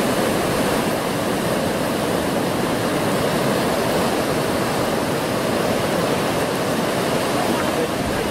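Steady, even rush of ocean surf breaking and washing through shallow water.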